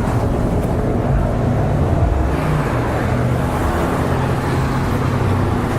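Street traffic: a steady wash of car engines and road noise with a low, continuous engine hum.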